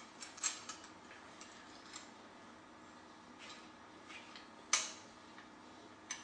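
Scattered light metallic clicks and clinks of bolts and nuts against a metal satellite-dish elevation bracket as they are slotted in and fitted by hand, with the sharpest clink a little under five seconds in.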